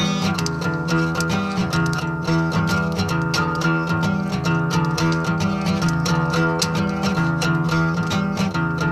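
Acoustic guitar strummed rhythmically, a run of chords with quick, even strokes and no singing.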